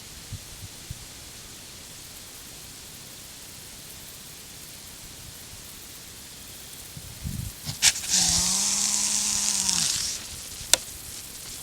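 A white-tailed buck gives a snort-wheeze, the aggressive challenge call of a rutting buck: a sharp snort about eight seconds in, then a drawn-out hissing wheeze of about two seconds with a low tone through it. A single sharp click follows about a second later.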